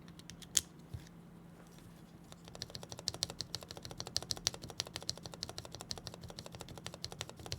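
Keyboard keys with freshly refitted keycaps tapped to test their sound: a few single clicks, then from about two seconds in a rapid run of many key clicks, several a second. The key tested sounds fine.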